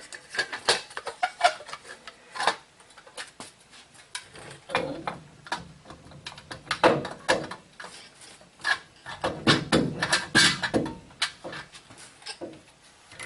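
Metal wheel hub assembly knocking, clinking and scraping against the steering knuckle and dust shield as it is worked onto the axle splines, in irregular bursts with louder clusters in the middle and toward the end.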